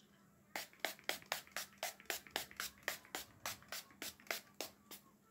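Pump-spray bottle of makeup setting spray misted at the face over and over: a quick run of short hissing sprays, about four a second and some eighteen in all.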